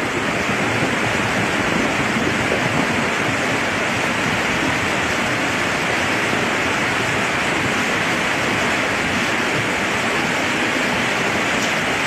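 Muddy floodwater of a stream swollen by days of continuous rain, rushing down a street: a steady, loud, unbroken sound of churning water.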